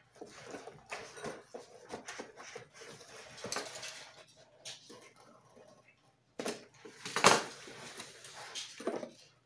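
Cardboard parcel being opened by hand: packing tape being cut, cardboard flaps pulled back and the box handled, in irregular scrapes, rustles and clicks, with the loudest noise about seven seconds in.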